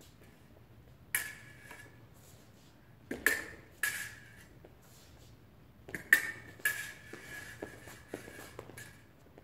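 Steel fencing blades striking each other in sharp metallic clashes, each leaving a short ringing tone. There is a single clash about a second in, two at about three and four seconds, and another pair around six to seven seconds, followed by a few lighter taps.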